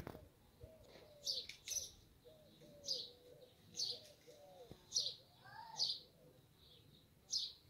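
Small birds chirping: a series of short, sharp high chirps about a second apart, over softer, lower repeated calls of other birds.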